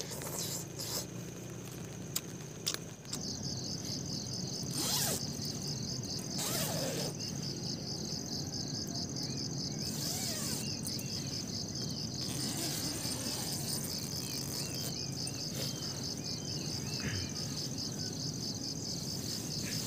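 Night insects, crickets, trilling steadily in a rapid pulsing rhythm that starts about three seconds in, over a low steady rumble of wind or rain. A few sharp clicks come before the trill begins.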